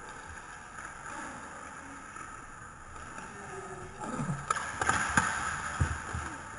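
Inline roller hockey play: a steady rolling hiss of skates on the rink floor, then from about four seconds in a run of sharp clacks of sticks and puck in front of the net.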